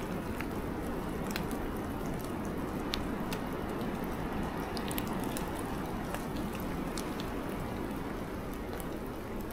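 Snow falling on dry leaves and the forest floor in woodland: a steady hiss with scattered faint ticks.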